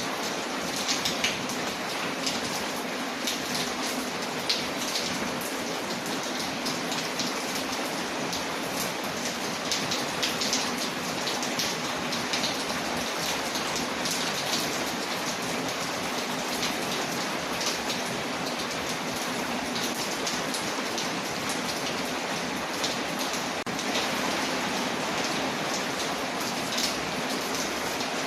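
Steady rain pattering on a window, layered with the scattered sharp pops and crackles of a wood fire.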